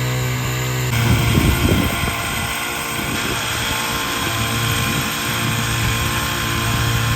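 Construction machine engine running steadily with a low hum; about a second in the sound turns rougher and noisier and keeps on.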